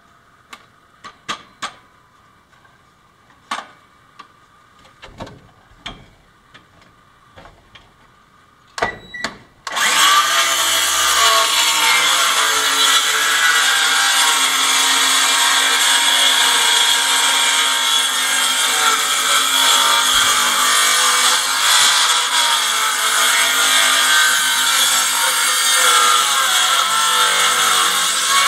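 A few light knocks and clicks, then about ten seconds in a small cordless circular saw starts up and cuts steadily along a curved line through a wooden floorboard.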